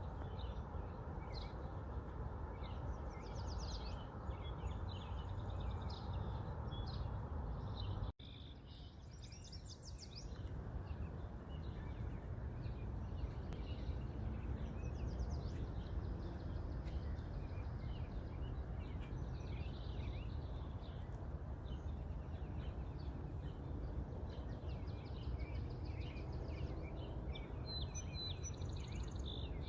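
Many small birds chirping over a steady low background rumble. The sound cuts out abruptly about eight seconds in and comes back slightly quieter for a couple of seconds.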